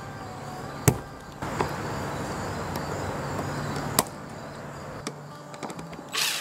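Old brittle plastic RV plumbing vent cap being snapped off the vent pipe with pliers: two sharp cracks about three seconds apart, with a steady rustling noise between them and a brief burst of noise near the end.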